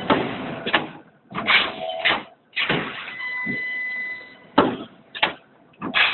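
Automatic chain welding machine running through its working cycle: a string of sudden noisy bursts, some about half a second apart and others a second or more apart, over a steady high whine.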